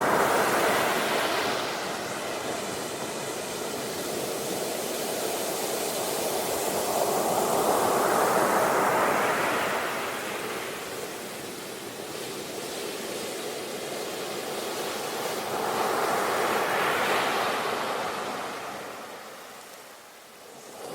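Sea waves breaking as surf: a steady rush of water that starts suddenly, then swells and ebbs three times, each surge rising to a peak about eight seconds apart.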